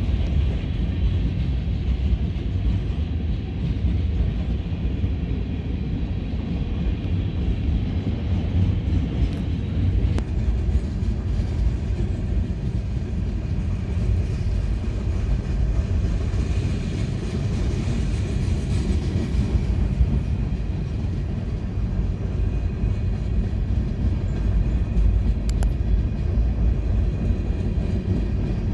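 CSX freight train's cars rolling steadily past, a continuous low rumble of wheels on rail.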